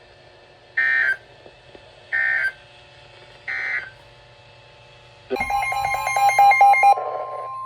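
Three short warbling digital data bursts about a second and a half apart: the NOAA Weather Radio end-of-message code closing a warning. After a pause, a harsher chopped electronic burst lasts about two seconds, and the steady weather radio warning alarm tone comes in loudly near the end.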